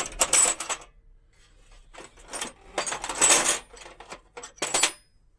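Metal hand tools clinking and clattering against each other as they are picked out and handled, in three bursts: one at the start, a longer one about three seconds in, and a short one near the end.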